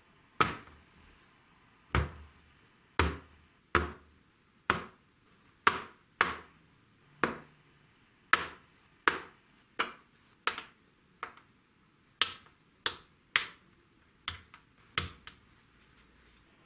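Rusty steel vise parts being set down one by one on a wooden workbench: about twenty sharp knocks at irregular intervals, roughly one a second, with a few in quick succession near the end.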